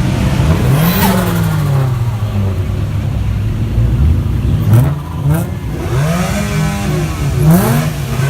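Car engine revving repeatedly, the pitch climbing and dropping: one rev about a second in and a series of quick blips in the second half. Two sharp cracks come around the middle.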